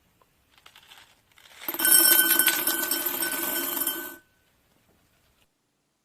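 A bell-like electric ringing, like a telephone bell, sounds for about two and a half seconds and cuts off suddenly. A few faint light rustles come before it.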